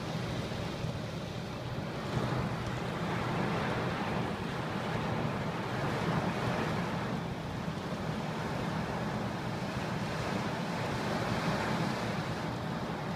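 Torrential thunderstorm rain pouring down in a steady hiss, heard from inside a car.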